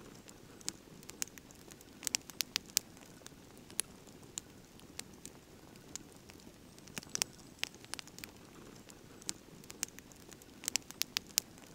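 Campfire crackling quietly, with scattered sharp pops and a quick cluster of them near the end.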